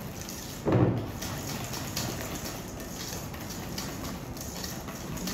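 Balloon whisk beating thick cheesecake batter in a stainless steel bowl: repeated scraping and swishing strokes of the wires against the bowl, several a second. About a second in there is a brief, louder low-pitched sound.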